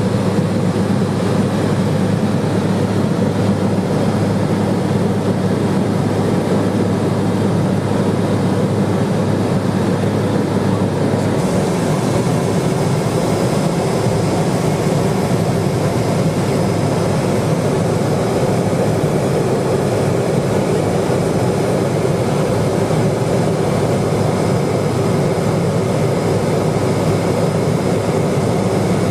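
Steady drone of a Cessna 210 Silver Eagle's single turboprop engine and propeller in flight, with a constant low hum under a broad rushing hiss. A brighter hiss joins about eleven seconds in and stays.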